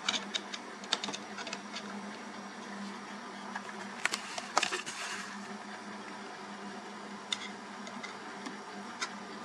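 Screwdriver clicking and scraping against metal as the screw of the bracket holding a garage door opener's replacement motor capacitor is tightened: scattered small clicks, a busier burst of clicking and scraping about four seconds in, and a few single clicks later, over a steady low hum.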